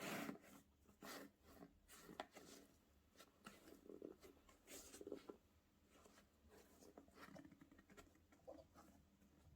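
Faint, irregular rustling with light clicks and knocks: a shoebox, its paper wrapping and the sneakers being handled.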